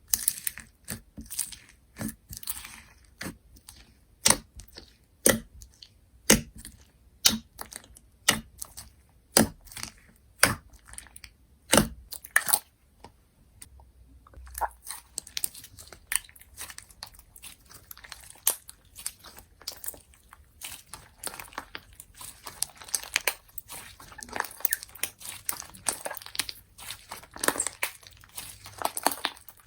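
Slime being pressed and squeezed by hand, giving sharp popping clicks about once a second, then from about halfway a dense, fast crackling of many small pops.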